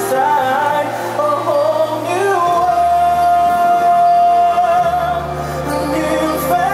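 Music with singing: a melodic song over instruments, with the singer holding one long note from about two and a half seconds in until nearly five seconds.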